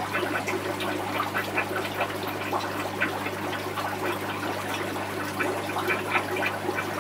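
Aquarium equipment running: water trickling and bubbling steadily over a low, steady hum.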